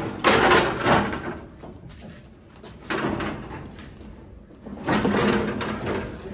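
Scraping and rustling of a person crawling under an obstruction in a tight crawlspace, in three bursts a couple of seconds apart.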